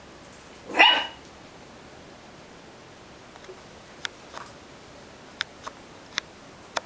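Puppy giving one short bark about a second in, followed later by a few brief, sharp, quieter sounds.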